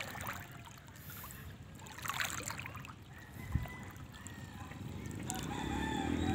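A rooster crowing in a long held call near the end, over a low hum that grows louder; a single short thump about three and a half seconds in.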